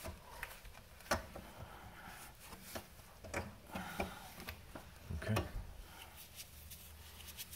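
Scattered light clicks and knocks from gloved hands handling the brake hose and cable fittings under the car, with a sharper knock about a second in and a few more around five seconds.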